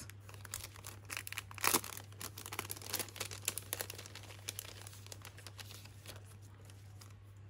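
Paper packet and acetate sticker sheets rustling and crinkling as they are handled and slid out, with a few sharper crackles about two and three seconds in, growing quieter toward the end.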